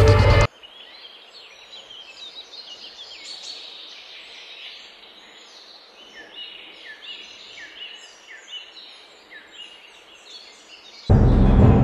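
Loud film music cuts off sharply, leaving a quiet outdoor bed of many birds chirping and calling in quick short notes. Loud music cuts back in near the end.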